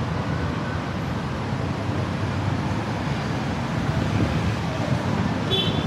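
Steady road traffic noise from cars and buses passing through a busy city intersection, with a brief high chirp near the end.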